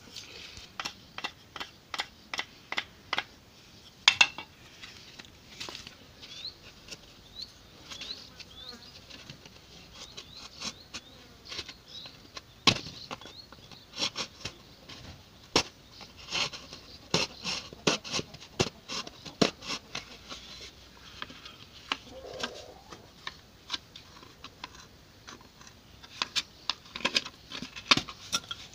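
A knife cutting and piercing a stiff plastic canister sheet: a long run of sharp, irregular clicks and snaps, some in quick pairs.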